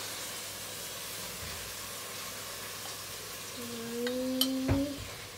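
Steady background hiss, then about three and a half seconds in a child's brief held hum lasting over a second, with a couple of sharp clicks of a knife against a plate.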